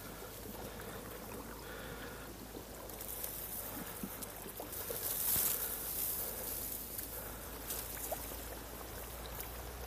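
Water sloshing and trickling, like something moving through water, over a steady low hum; it swells about five seconds in.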